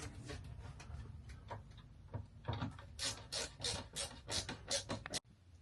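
An air filter being pushed and slid into the ceiling return-air assembly of a rooftop RV air conditioner: a run of short scraping rubs, about three a second, over a low steady hum. The sound cuts off suddenly near the end.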